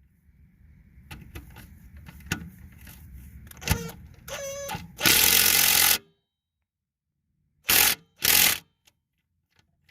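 Impact wrench driving the engine's mounting bolts down through the mower deck: light clicking and rattling, then a loud burst of hammering about a second long, and two short bursts near the end.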